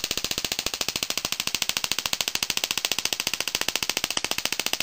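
Small spark-gap Tesla coil running: its static spark gap fires in a rapid, even train of sharp cracks, about twenty a second, heard as a steady buzzing crackle.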